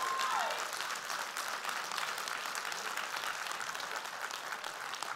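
Congregation applauding, a dense patter of many hands clapping that slowly dies down, with one voice calling out a long held note at the very start.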